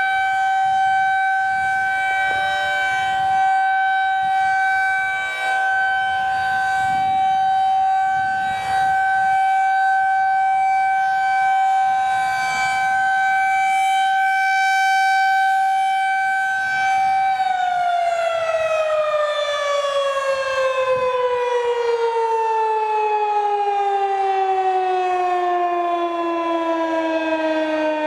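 Federal Signal 2001-SRN outdoor warning siren sounding a steady tone at full speed during its weekly test. About 17 seconds in it winds down, its pitch falling steadily.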